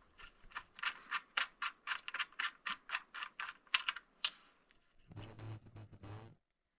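A quick run of light clicks, about five a second, for about four seconds: the Magnetor mount's arm being handled and worked loose. A short low rumble follows near the end.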